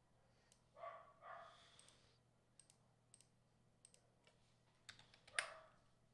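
Faint clicking of a computer keyboard and mouse, a few scattered keystrokes, with one louder click near the end.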